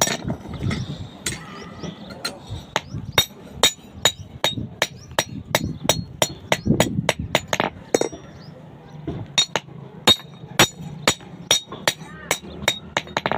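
Blacksmith's hammer striking iron on an anvil in a quick, steady rhythm of about three blows a second. Each blow has a short metallic ring, and the hammering pauses briefly about two-thirds of the way through.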